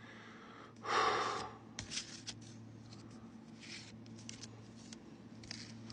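Pokemon trading cards being handled and slid over one another: a brief swish about a second in, then a few soft scattered rustles and clicks.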